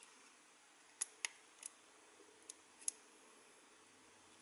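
A handful of small, sharp plastic clicks and taps, spread over a couple of seconds, as an SD card is worked into the card slot on the side of a pair of FPV goggles.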